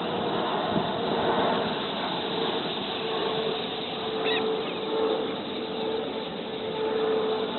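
Large flock of water birds calling together in a dense, even chorus, over the steady drone of a passing airplane that swells and fades. One short, higher call stands out about four seconds in.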